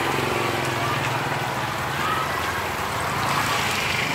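Busy street-food stall ambience: a steady hiss over a low hum, with faint voices in the background.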